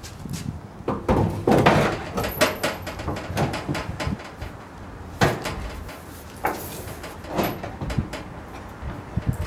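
A loose bare steel car fender being handled and set into place against the body: sheet metal scraping and knocking, with a busy stretch of scrapes about a second in and single clunks later on.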